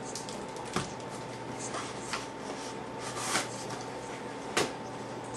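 Hands handling basketball trading cards and their packaging: a few scattered clicks, taps and short rustles, over a faint steady hum.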